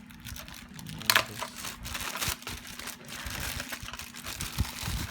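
Packaging crinkling and rustling in irregular bursts as a wrapped part is handled and unwrapped, with one sharp click about a second in.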